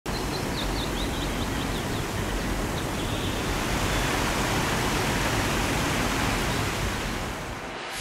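Steady rushing water of a waterfall, with a small bird chirping a quick run of notes over it during the first few seconds. The water sound fades slightly near the end.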